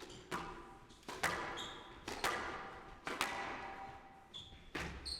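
Squash ball being struck by rackets and hitting the court walls during a rally, a sharp smack about once a second with a ringing echo, with short squeaks of shoes on the court floor in between.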